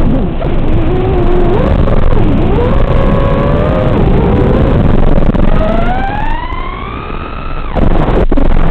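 Brushless motors and propellers of a 5-inch FPV quadcopter (DYS SHU 2306 2500KV) whining, the pitch sliding up and down with throttle. Midway it makes a long rising whine as the quad punches out into a steep climb, and it drops off sharply near the end as the throttle is cut.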